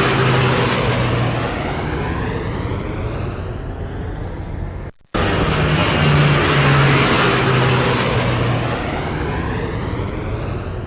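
Jet airplane roar passing by on takeoff. The rushing noise sweeps downward in pitch as it goes and slowly fades. It cuts out briefly about five seconds in, and the same pass starts again.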